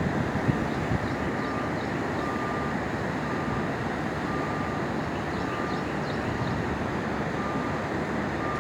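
Steady rushing roar of the flooded James River's high, fast water. A faint short tone repeats about once a second over it, and there are a couple of soft bumps near the start.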